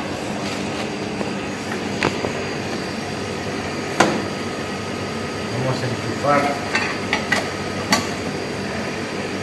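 A few sharp single clicks and knocks as electrical parts and wiring are handled and fitted around a refrigeration compressor, the loudest about four seconds in, over a steady mechanical hum.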